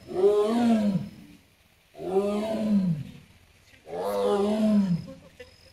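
Amur tiger calling: three loud, drawn-out calls about two seconds apart, each rising slightly and falling off at the end.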